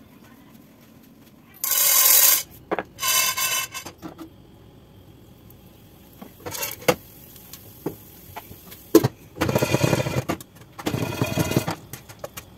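Two loud rubbing strokes of a cloth wiping a glass-topped table, about two and three seconds in. Then kitchen sounds at a gas stove: scattered clicks and knocks, and two longer rattling bursts near the end from the popcorn pot on the burner.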